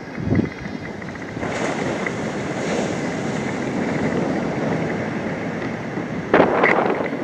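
Wind blowing over the microphone in a steady rush, with two short louder bursts near the end.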